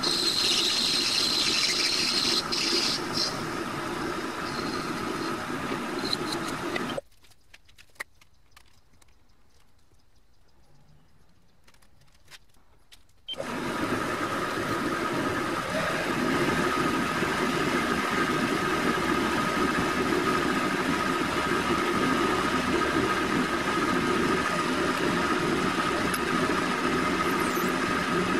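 TV-16 lathe running while a turning tool cuts a small brass part, with a high squeal for the first few seconds. About seven seconds in, the sound drops away suddenly for some six seconds. Then the lathe runs steadily again while a drill in the tailstock chuck bores into the end of the spinning brass piece.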